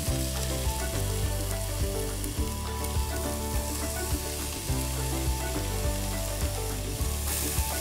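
Shredded chicken frying in a hot pot of butter, sautéed onion and paprika as it is dropped in by hand, a steady sizzle throughout.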